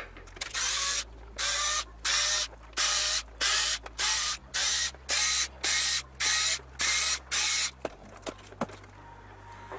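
A Bosch cordless screwdriver whirs in short repeated bursts, about two a second, as it backs screws out of a studio monitor's rear panel. It stops near the end, followed by a few light knocks.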